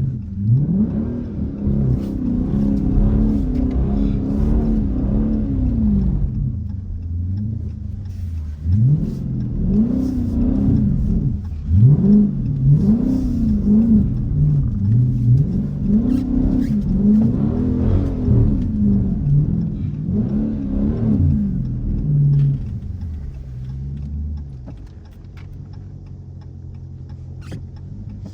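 Car engine revving up and falling back over and over in short throttle bursts, as when sliding the car around on snow. Near the end it settles to a lower, steady running note.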